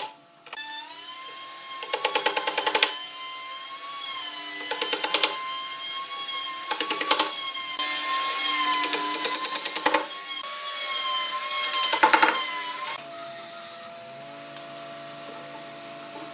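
A handheld power tool's motor whines steadily, its pitch wavering slightly with load, with several short bursts of rapid rattling. Near the end a lower, steadier hum takes over.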